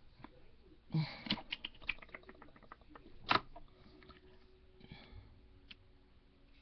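A quick run of small clicks and rattles about a second in, then one sharper click a little after three seconds: small hard objects being handled on a table.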